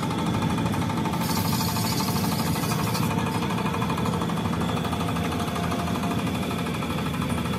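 A machine running with a steady, rapid rattle; a hiss joins it about a second in and stops about two seconds later.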